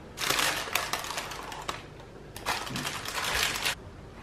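Baking paper crinkling and rustling in two bursts as a slab of brownie is lifted out of its baking tin by the paper lining.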